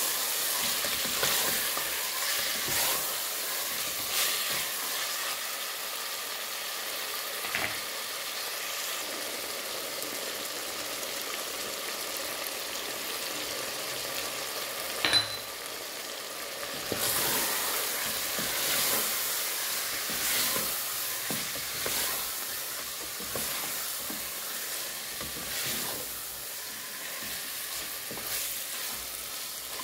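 Mutton pieces sizzling in hot oil in a pressure cooker, with a spatula scraping and stirring them in spells. A single sharp clink about fifteen seconds in.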